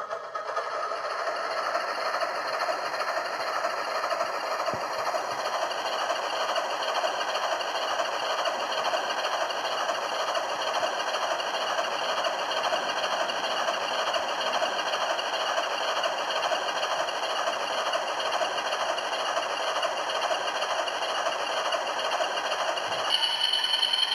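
Diesel engine sound from the DCC sound decoder's speaker in a model PRR RF-16 locomotive, running steadily as the model moves, mixed with the hum of its electric motors. A higher tone joins about a second before the end.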